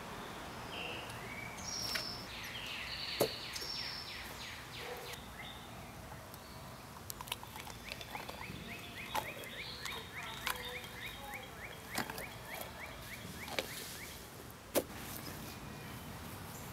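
Outdoor background with birds singing: several chirps early on, then a fast run of repeated short notes, about six a second, lasting a few seconds. A few sharp clicks are scattered through it.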